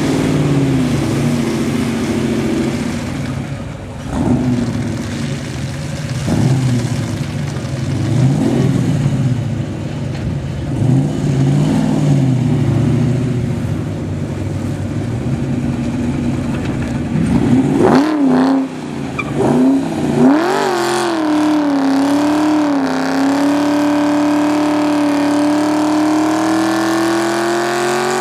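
Buick Regal's engine, which has a bad exhaust leak, running with a few short revs, then about 18 seconds in accelerating hard on a timed run. Its pitch climbs and drops back at each upshift of the stock transmission, then rises steadily.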